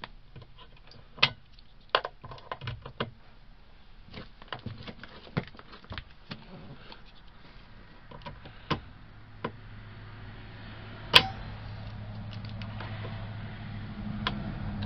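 Multimeter test leads and probes being handled and clipped onto the DC terminals of an RV converter panel: scattered small clicks and rattles, with one louder sharp click about eleven seconds in. A low steady hum comes up in the second half.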